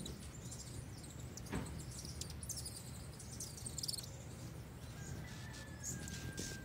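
Hummingbirds at a feeder giving quick, high-pitched chips and twitters in short rapid series, over a steady outdoor background. There is a single soft thump about a second and a half in, and a faint steady high tone joins from about five seconds in.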